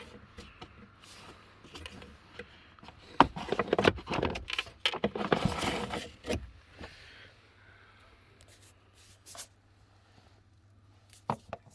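Plastic cabin air filter cartridge being pulled out of its housing: rustling and scraping with sharp plastic clicks, busiest from about three to six and a half seconds in, then a few scattered clicks.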